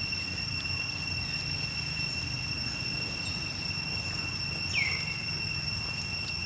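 Insects droning steadily at a few high pitches, with one short downward-sweeping chirp just under five seconds in.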